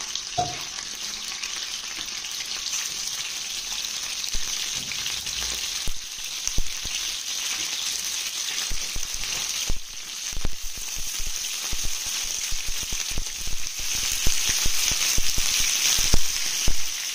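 Chicken pieces frying in hot oil on a tawa griddle: a steady sizzle with sharp spattering pops that come thicker and louder from about halfway through.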